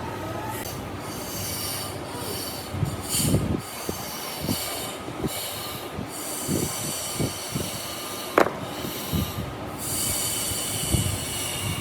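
Woodworking power tool working wood, with high-pitched squealing tones in stretches of a second or two, broken by short knocks.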